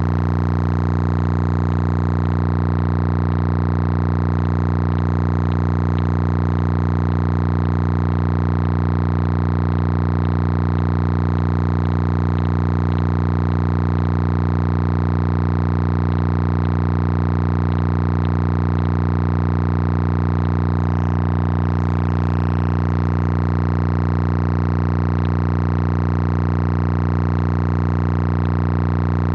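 Three 15-inch Slapz Audio Oblivion subwoofers playing a 30 Hz test tone at full power. It is heard as a steady, unchanging buzzy bass drone, held throughout.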